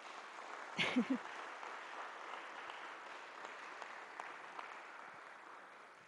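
Audience applauding, the clapping dying away near the end, with a brief voice heard about a second in.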